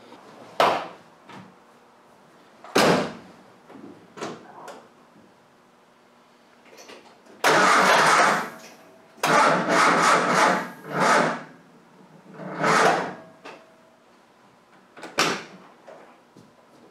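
Triumph Spitfire's four-cylinder engine being cranked by the starter in several short bursts without catching. A few sharp knocks and a thump come first.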